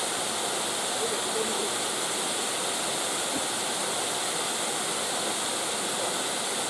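A waterfall running: falling water making a steady, even rushing noise with no breaks.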